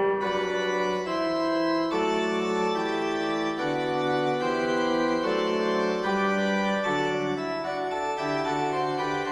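Background music: sustained organ-like keyboard chords, each held about a second before moving to the next.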